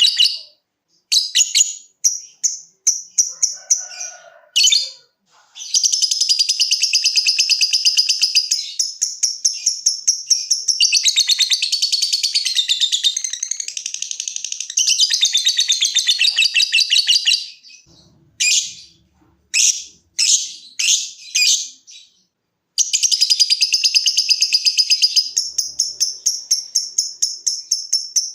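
Lovebird singing long, rapid chattering trills (the 'ngekek' song), broken near the middle by a few short, separate calls.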